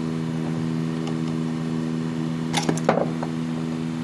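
Sharp metal clinks of hand tools on a car AC compressor's magnetic clutch as it is taken off, a few of them about two and a half to three seconds in, over a steady machine hum.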